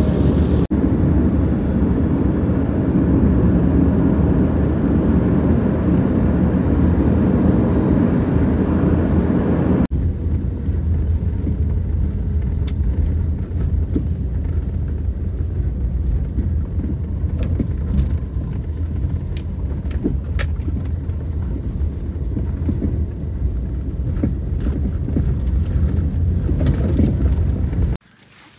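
Car driving, heard from inside the cabin: steady engine and road noise on a paved road. At about ten seconds it changes to a duller rumble on an unpaved dirt track, with scattered small clicks. It cuts off shortly before the end.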